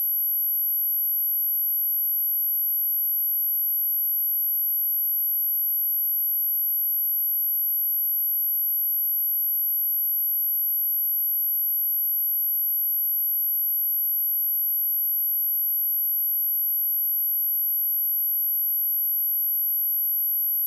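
A steady, unbroken high-pitched pure tone: an electronically generated 11746 Hz sine wave used as a speaker test tone.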